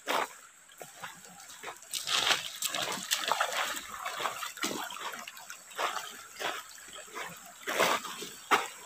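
Footsteps in rubber boots on loose river gravel and splashing through a shallow, stony stream, as a string of irregular sharp steps.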